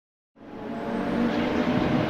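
Silence, then about a third of a second in the sound of the 1979 Porsche 935 Kremer K3's twin-turbo flat-six running fades in and grows louder before holding steady.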